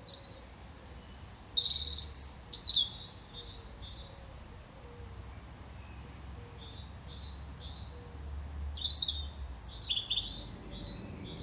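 European robin singing: two phrases of short, high notes at varied pitches, the first starting about a second in and the second about six and a half seconds in.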